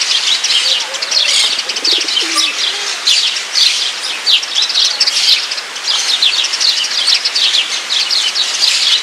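Dense chorus of many small songbirds chirping without pause, the short high chirps overlapping each other, with a few low calls from a larger bird about two seconds in.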